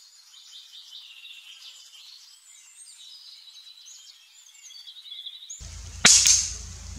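Birds chirping, with many quick, high twittering calls. A low rumble then comes in, and about six seconds in a single sharp shot cracks out, the loudest sound here.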